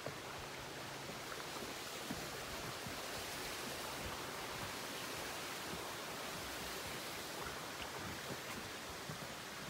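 Steady rushing of a creek flowing beneath a footbridge, with a few faint footsteps on its wooden planks.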